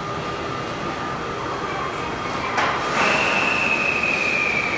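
JR West 283 series Ocean Arrow electric train pulling slowly out of the station with a steady running rumble. About halfway through there is a brief burst of noise, and then a high whine starts and slowly falls in pitch.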